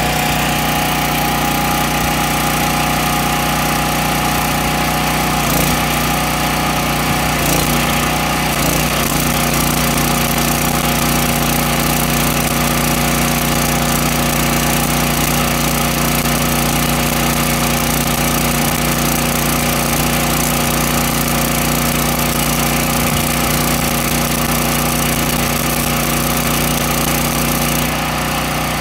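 Miller engine-driven welder-generator running steadily; its note shifts about six to nine seconds in and holds an added steady tone while it carries the load of stick welding, easing off near the end.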